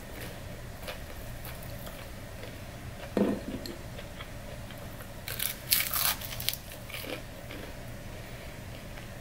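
Biting and chewing extra-crispy fried chicken wings: a dull knock about three seconds in, then a run of sharp crackling crunches between about five and six and a half seconds in.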